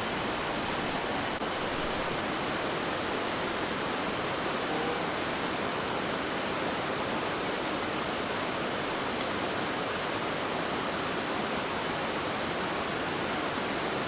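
Steady rushing of a mountain stream, its flow strong and swollen by monsoon rains.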